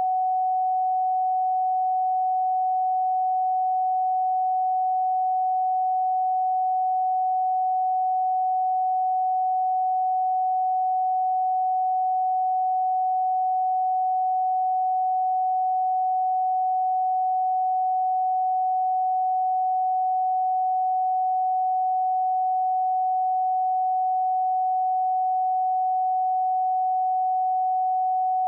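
A single electronic pure tone (sine wave), held steady at one fairly high pitch with no change in pitch or loudness.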